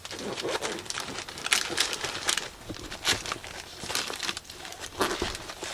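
A bag or wrapper crinkling and rustling, handled in uneven bursts.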